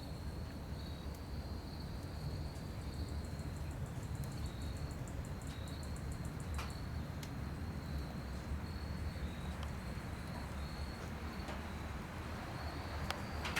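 Insects trilling in high, on-off runs with fine rapid ticking above, over a steady low rumble, with a few sharp clicks.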